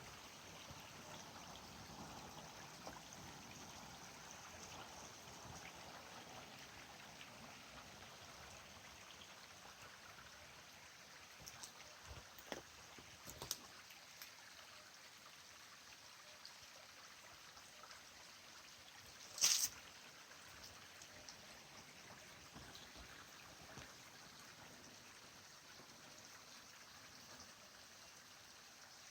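Small mountain stream trickling, a faint steady water sound. A few soft clicks come around the middle, and one short, sharper and louder click about two-thirds of the way in.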